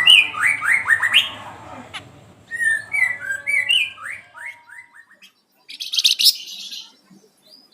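Flamboyan songbird singing: two fast runs of clear down-slurred whistles, followed near the end by a harsh, scratchy burst of notes.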